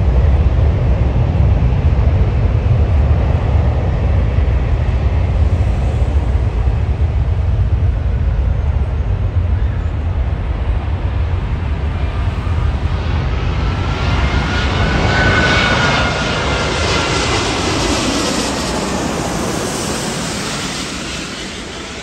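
Airbus A380's four Rolls-Royce Trent 900 turbofans on final approach, passing low overhead: a deep rumble gives way, about two-thirds of the way through, to a high engine whine that rises and falls in pitch as the jet goes by. The roar then slowly fades.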